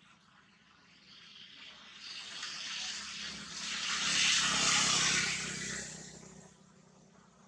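A passing motor vehicle: a broad engine noise that swells over a few seconds, is loudest around the middle, then fades away.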